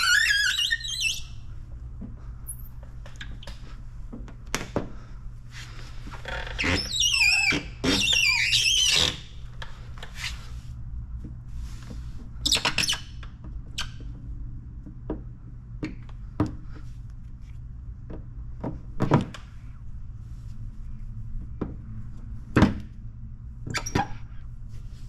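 A squeegee squeaking and scraping over wet paint protection film as it is pressed down on a car fender, with a few squeaky strokes about seven to nine seconds in and another near thirteen seconds. Scattered light taps and clicks sit over a steady low hum.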